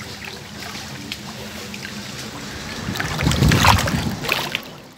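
Pool water sloshing and lapping right at the microphone, with small splashes, louder for about a second and a half a little past the middle.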